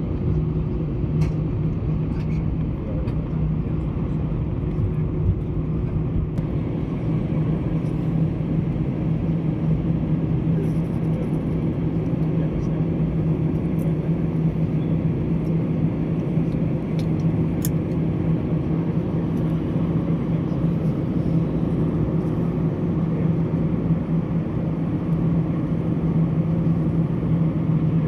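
Steady hum of an Airbus A320's engines and air system heard inside the passenger cabin, a low drone holding one pitch with no rise in power.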